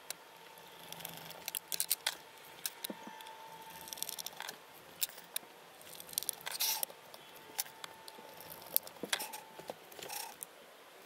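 Hand screwdriver driving wood screws into plywood, with scattered light clicks and taps of tools and metal parts being handled.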